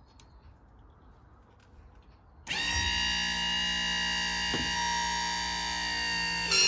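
Parker Oildyne 108 electro-hydraulic deck-lift pump on a Toro Wheel Horse 270-H, run straight off a 12 V battery with its polarity reversed to work the other hydraulic circuit. After about two and a half seconds of quiet, the motor starts and runs with a steady whine for about four seconds. It gets louder just before it cuts off.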